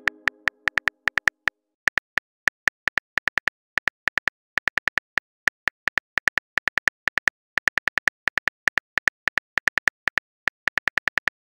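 Phone keyboard typing sound effect: a fast, uneven run of short clicks, several a second in small bursts, stopping shortly before the end.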